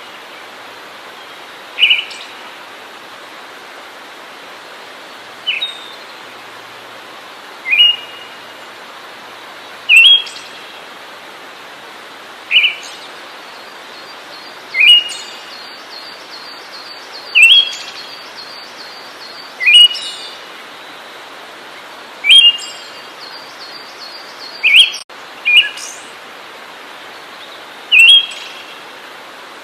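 A songbird repeating a short, sharp call about every two to two and a half seconds, over a steady hiss, with a faint rapid ticking call from another bird in the background twice.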